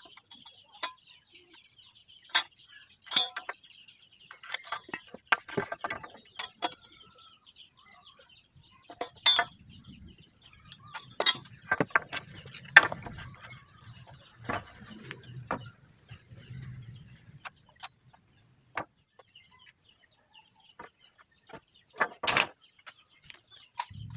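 Irregular knocks and clicks of pallet wood being worked with hand tools, over a thin steady high whine that stops near the end.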